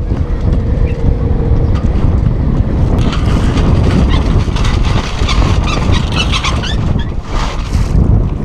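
Wind buffeting the microphone on a sailboat, with the mainsail's cloth rustling and crackling as it is hoisted up the mast from about three seconds in.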